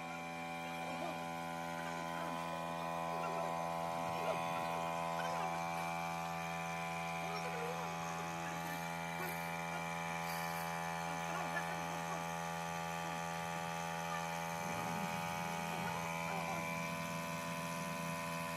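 Steady hum at one fixed pitch, with faint wavering sounds over it.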